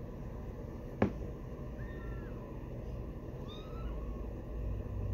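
Three-week-old kittens mewing: two small, thin, high mews, about two seconds in and again about three and a half seconds in, the second rising and then falling in pitch. A single sharp click comes about a second in.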